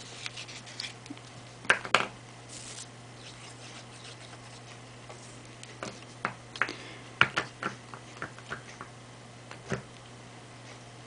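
Hands working paper and card stock on a craft table: scattered taps, clicks and paper rustles, two sharp ones about two seconds in and a cluster in the second half, as a plastic glue bottle is picked up and set back down. A faint steady low hum runs underneath.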